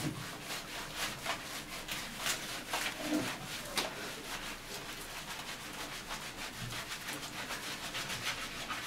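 Hands rubbing and scrubbing a German shepherd's wet coat, a run of quick, irregular scratchy rubbing strokes as the fur is worked through.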